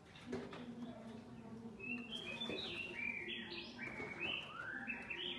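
A pet songbird singing a run of short whistled notes that glide up and down, starting about two seconds in.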